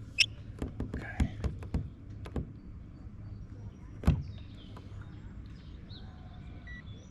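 Scattered clicks and knocks of handling, with one sharp knock about four seconds in, then a short electronic beep near the end from a digital fish scale being used to weigh a bass.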